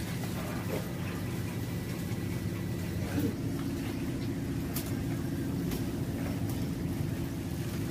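A steady low mechanical hum, like an engine running, whose pitch shifts about three seconds in, with a few faint clicks.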